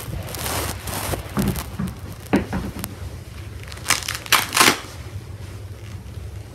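Irregular rustling and crinkling close to the microphone, with a few sharp crackles, the loudest about four seconds in, over a steady low hum.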